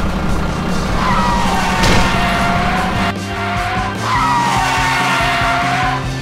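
Tyre-screech sound effect twice, each screech lasting about two seconds and falling in pitch, with a sharp crash just before the second second, over background music.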